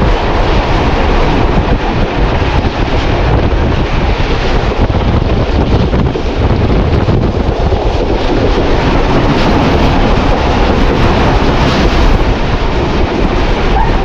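Steady rumble of a moving train hauled by a Hitachi PHA-20 diesel locomotive, heavily buffeted by wind on the microphone.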